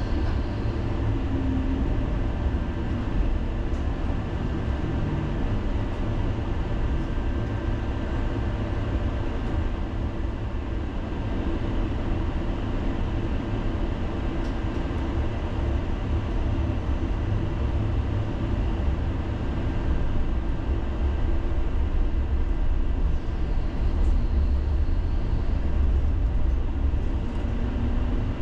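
Helsinki tram running along its rails, heard from inside the car: a steady low rumble with a faint constant hum that grows a little louder after about twenty seconds.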